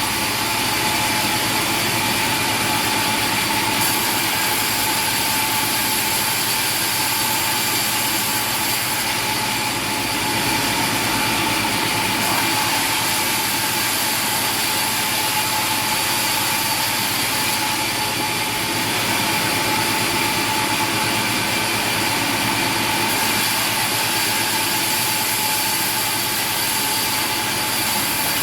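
A machine running steadily at constant speed, with a steady high whine over a dense mechanical noise.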